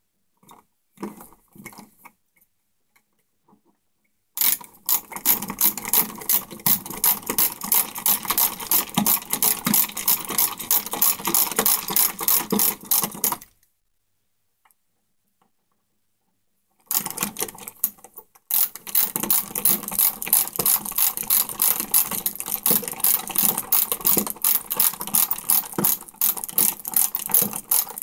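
Ratcheting screwdriver clicking rapidly as it drives the mounting screws of a wall light switch into the electrical box, in two long runs with a pause between, one for each screw.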